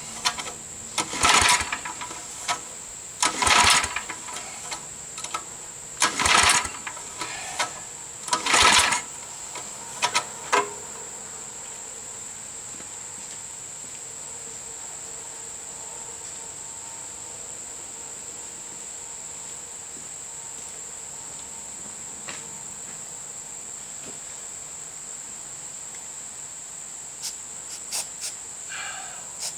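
The Tecumseh V60 engine of an old Snapper riding mower being turned over in about five short cranking bursts during the first ten seconds, without catching and running. Then only steady insect chirring is left.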